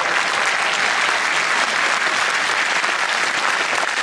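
Stadium crowd applauding steadily, a dense, even clapping.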